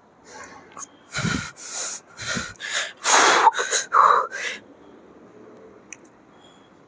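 A weightlifter's loud, strained breathing under a heavy dumbbell press: a quick string of hissing exhalations and gasps over about three and a half seconds, then quieter breathing.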